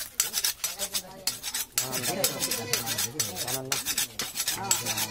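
Butcher's knife being sharpened, its steel blade scraped in quick repeated strokes against another metal blade.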